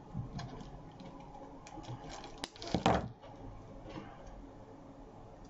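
Quiet handling of artificial flower stems, with a sharp click about halfway through and right after it a louder clunk of a hand tool set down on the cutting mat.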